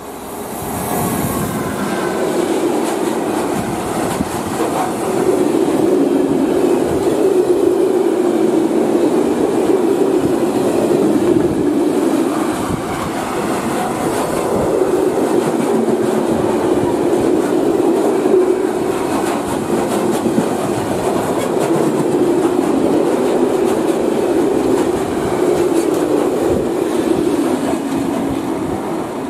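Long freight train of hopper wagons, hauled by an electric locomotive, passing close at speed. Loudness builds over the first few seconds as the locomotive draws level, then a steady rumble of wagon wheels on the rails with clickety-clack wheel beats over the joints.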